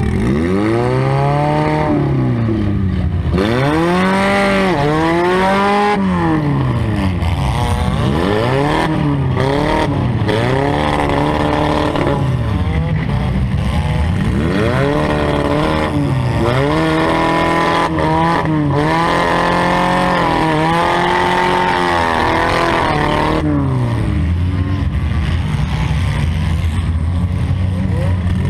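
Demolition derby car's engine revving up and falling back again and again, every second or two, with a few short knocks along the way.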